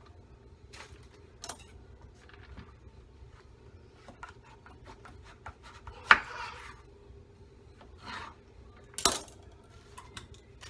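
Kitchen knife working through a green papaya on a cutting board: scattered scrapes and light taps, with two sharper knocks about six and nine seconds in.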